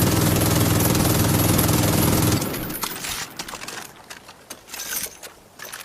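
MG-42 machine gun firing one long burst, its very fast rate of fire running together into a continuous rip, which cuts off about two and a half seconds in. After that come scattered faint clicks and knocks.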